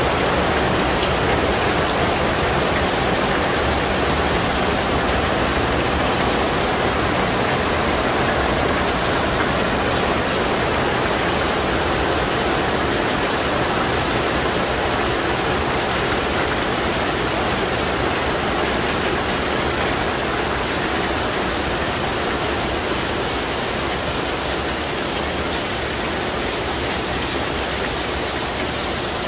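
Heavy rain falling steadily, with runoff pouring off the edge of a patio awning onto wet paving.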